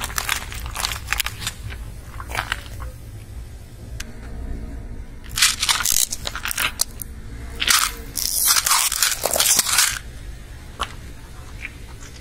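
A car tyre crushing a drink can and bowls of hard candy-coated sweets: crackling crunches in several bursts, the longest and loudest from about eight to ten seconds in.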